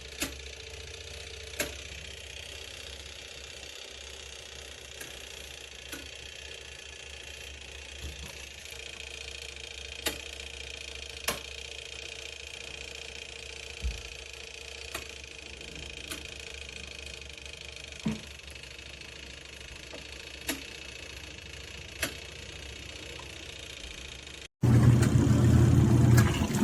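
Small electric motor of a portable twin-tub washing machine running with a steady hum, with irregular sharp clicks or knocks every second or two. It cuts off abruptly near the end, giving way to a louder, different sound.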